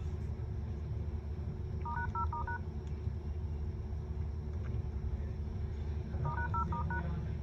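Phone dial-pad key tones: two quick runs of about five short beeps each, about two seconds in and again near the end, over a steady low hum.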